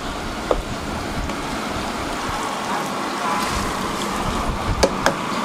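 Steady mechanical noise with a few sharp knocks, one about half a second in and two near the end.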